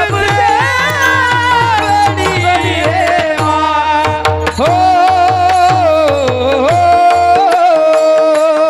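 Indian devotional song: a voice singing long, ornamented held notes over steady sustained instrumental tones and a regular tabla beat of about three strokes a second. The drum drops out briefly near the end while the voice holds a note.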